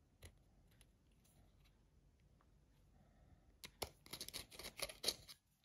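Hand pin vise with a 2 mm twist bit being turned in thin aluminium sheet. A few faint clicks at first, then about three and a half seconds in a quick run of scratchy, rasping clicks as the bit cuts and scrapes the metal.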